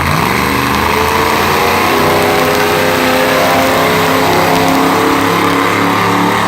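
Backhoe dragster's engine launching: the pitch jumps sharply right at the start, then climbs steadily as it accelerates down the strip.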